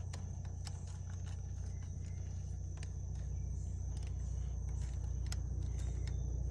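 Steady low rumble with a thin, steady high whine over it, and faint scattered clicks of metal parts as the front wheel's hub and axle are handled into the bike fork.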